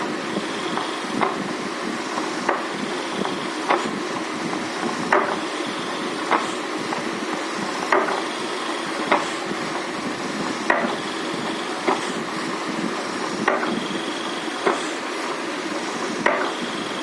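High-torque DC gear motor of an Arduino ventilator rig running steadily, with a sharp knock about every second and a quarter. The knocks come in pairs, and the pairs repeat about every two and a half to three seconds as the motor cycles back and forth to inflate and deflate the silicone balloon.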